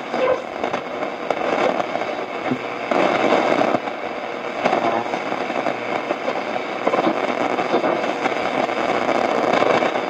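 Shortwave static, a dense hiss with continual crackling that shifts in level, from a Realistic DX-60 shortwave receiver's own speaker while it is tuned between stations.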